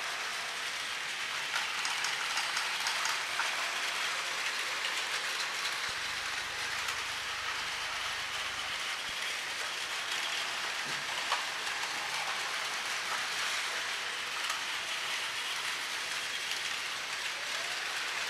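Several battery-powered Plarail toy trains running on plastic track: a steady whirring of their small motors with a light, even clatter of wheels on the rails, and one brief sharper click about eleven seconds in.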